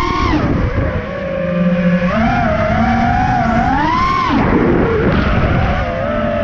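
FPV freestyle quadcopter's brushless motors and propellers whining, the pitch rising and falling with the throttle. The pitch drops sharply about half a second in and again near four seconds in, then climbs again.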